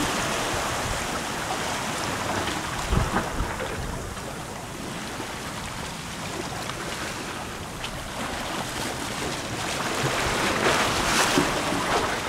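Sea surf washing and breaking against the jetty's boulders, with wind buffeting the microphone. The wash eases off in the middle and swells louder again near the end.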